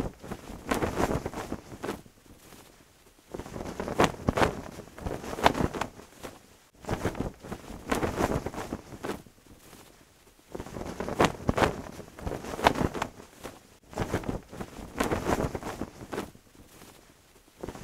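Wind gusting, with a cloth flag flapping and snapping in bursts that come about every three to four seconds.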